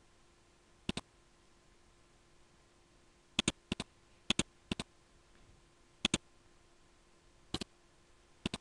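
Computer keyboard keystrokes: about ten short, sharp clicks, some in quick pairs, at an irregular typing pace as a search phrase is typed, over a faint steady hum.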